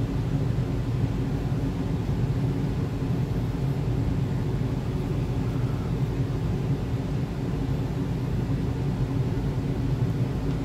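Steady low mechanical hum, even and unchanging, with its weight in the low range.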